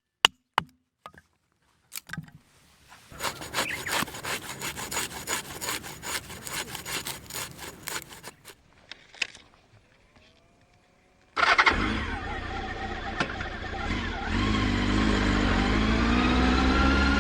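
A run of rapid clattering and knocking, then, about two-thirds of the way in, a motorcycle engine starts suddenly and keeps running, its pitch wavering briefly before settling into a steady idle.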